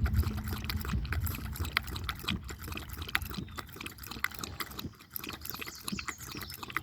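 Dog lapping water, given from a plastic water bottle: a quick, irregular run of wet clicks.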